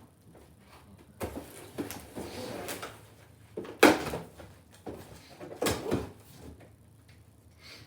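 Irregular knocks, scrapes and rustles of things being handled, with the sharpest knock about four seconds in and another cluster about six seconds in.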